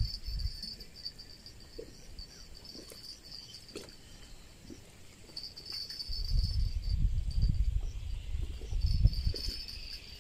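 Insects chirring in a steady high band that comes and goes in stretches, with wind buffeting the microphone in low rumbling gusts that grow loud from about six seconds in.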